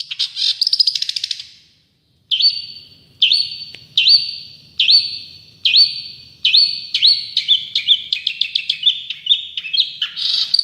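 Long-tailed shrike (cendet) singing: a fast chatter, then after a short pause a run of clear high notes, each sweeping up sharply and then held, about one a second. The notes quicken into shorter, choppier phrases and end in harsher notes.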